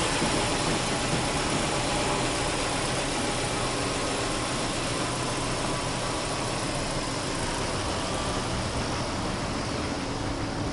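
Subaru Impreza 1.5i-S's 1.5-litre flat-four boxer engine idling steadily, heard from the open engine bay.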